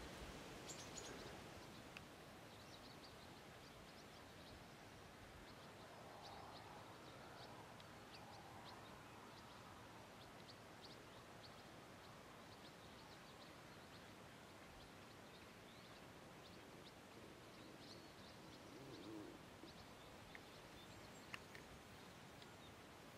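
Faint outdoor quiet with small birds chirping on and off, short high chirps scattered throughout.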